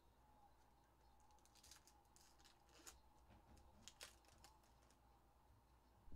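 Near silence: faint room hum with a handful of light, scattered clicks.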